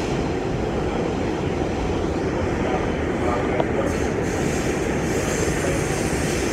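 Steady running noise of an R46 subway car in motion, heard from inside the car: wheels on the rails and car-body noise, even and unbroken.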